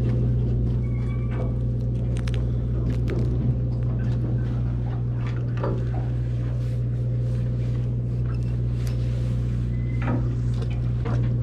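Steady low drone of a fishing boat's engine, with a few light clicks and knocks from handling fishing tackle.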